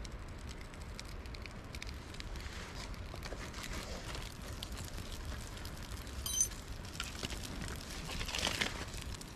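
Campfire being lit: tinder and small kindling sticks crackle and rustle as they catch and are fed in by hand, with many small pops. Around six seconds in comes a brief sharp high-pitched blip, and near the end a louder rush as the flames take hold.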